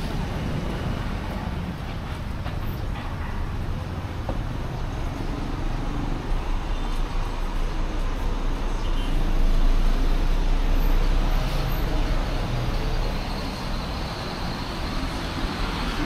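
Road traffic: a steady low rumble of vehicles that swells to its loudest about ten seconds in, as of a heavy vehicle going by, then eases off.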